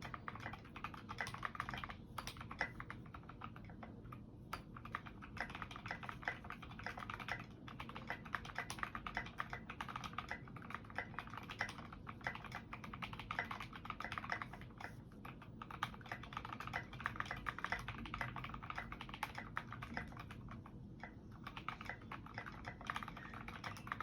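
Typing on a KBD67 MK-I mechanical keyboard with lubed and filmed Creamsicle linear switches and modded Cherry stabilizers. The keystrokes come fast and steady, with a few brief pauses.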